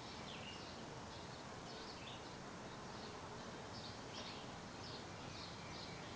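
Birds chirping faintly in quick short high notes, about two a second, over a steady outdoor hiss.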